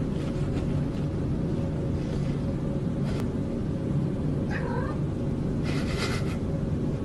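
Domestic tabby cat growling low and without a break, a defensive warning. A short, higher yowl comes about halfway through, and two short hisses come near the end as it lunges.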